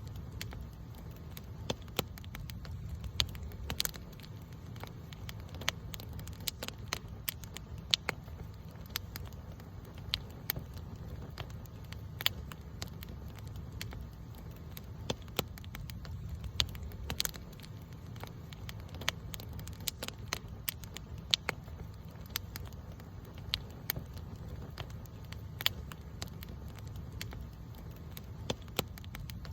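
Wood campfire burning and crackling, with irregular sharp pops and snaps over a steady low rumble of the flames.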